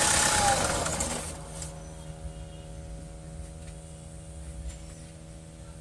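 Mahindra XUV500 engine switched off, its running sound dying away over the first second or so, a tone dropping in pitch as it stops. A faint steady hum of several fixed tones carries on after shutdown: the fault noise that keeps sounding after the engine stops, much reduced with the vacuum pipe pulled off, which the mechanic ties to the EGR vacuum solenoid.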